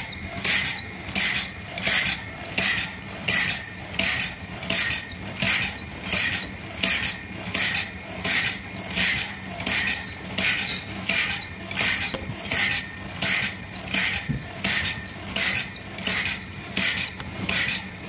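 1938 sawmill machine running, a steady mechanical rhythm of sharp hissing strokes, about four every three seconds, over a low steady hum.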